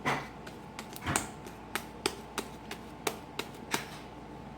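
Homemade glue-and-borax slime being kneaded and squeezed by hand, giving a series of short, sharp popping clicks, about three a second, that stop near the end. The clicking is a sign that the slime has set.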